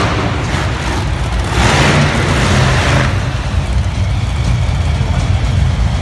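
Monster truck engines running loud and revving, swelling about a second and a half in and easing off after about three seconds.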